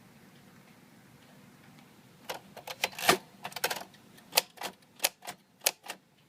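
Royal Futura 800 manual typewriter being typed on: after a short pause, keys strike the platen one at a time from about two seconds in, a few sharp clacks a second at an uneven pace.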